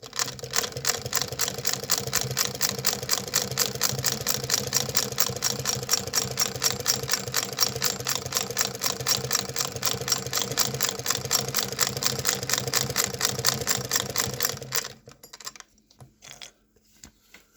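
Antique 'Singer System' 12K-style shuttle sewing machine by the American Sewing Machine Company of London, hand-cranked and sewing: a fast, even clatter of the mechanism with each stitch. It stops about 15 seconds in, followed by a few soft clicks.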